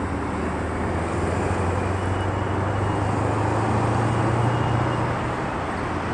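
A motor vehicle's engine hum rising as it draws near and easing off near the end, over a steady wash of outdoor traffic noise.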